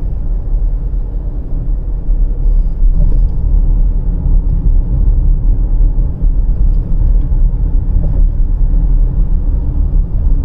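Range Rover Velar cruising at highway speed, about 80 km/h: a steady low road and engine rumble heard inside the cabin.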